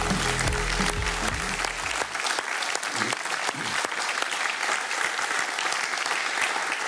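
Studio audience applauding steadily, with a music jingle underneath that ends about two seconds in.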